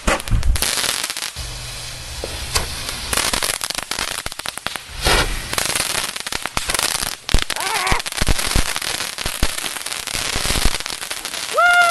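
Consumer fireworks going off together: dense strings of rapid crackling pops and bangs.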